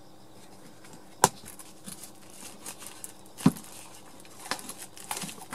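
Snap fastener of a nylon multi-tool sheath popping open with a sharp click, followed by a second knock and light rustling and clicking of nylon and plastic wrap as the bagged tool is worked out of the sheath.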